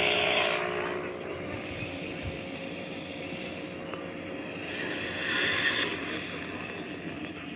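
Steady hiss of weather-radio static, with a brief louder patch of higher hiss about five seconds in.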